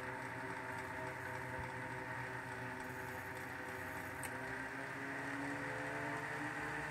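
Antique Western Electric list 7700 commutator-motor desk fan running steadily: a motor hum with several steady tones over a rush of air. About five seconds in, its pitch rises slightly as the motor speeds up.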